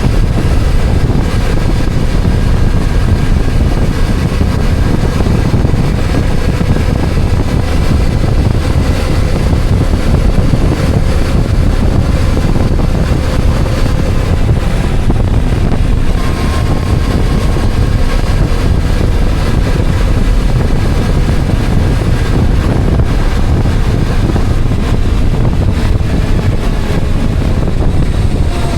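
Wind buffeting the microphone over the steady drone of a vehicle on the move, with engine and road noise underneath at a constant speed.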